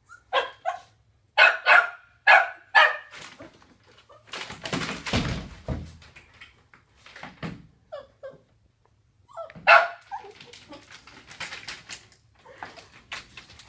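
Puppy barking and yipping in short high calls: three quick barks near the start, a louder one just before ten seconds in, and softer yips in between. About four and a half seconds in, a scuffling rumble as the plastic pet carrier tips and slides on the carpet.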